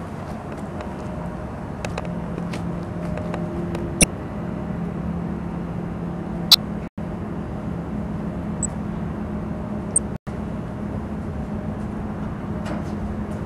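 Steady low mechanical hum, like an engine or machine running, with a few sharp clicks and two brief moments where the sound cuts out completely.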